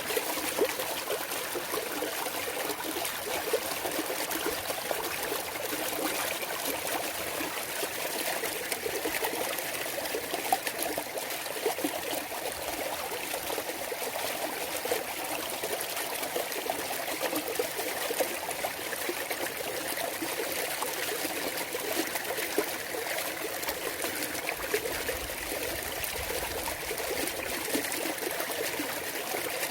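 A clear mountain valley stream trickling and babbling over rocks. It is a steady rush of water with many small splashes and plinks.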